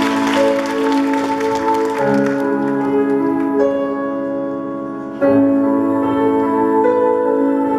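Slow instrumental music of long held chords, changing twice. Applause is dying away over the first couple of seconds.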